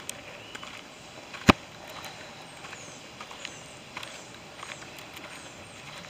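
Footsteps on a dirt forest trail: scattered soft steps and small crunches, with one sharp loud click about a second and a half in.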